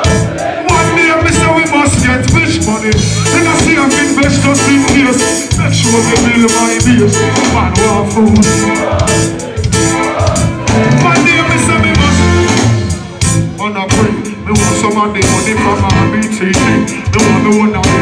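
Live reggae band with drum kit, bass, keyboards and guitar playing a steady beat, with a male dancehall vocalist singing over it.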